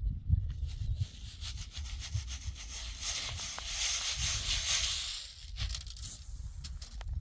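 Steady rough scraping, loudest from about one to five and a half seconds in, with scattered small clicks over a low rumble.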